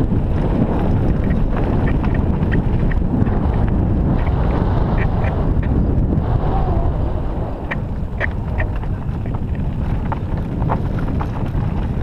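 Wind rushing over the camera microphone and tyres rolling over a dirt and gravel trail on a descending mountain bike, with many short high clicks and rattles from the bike scattered through it.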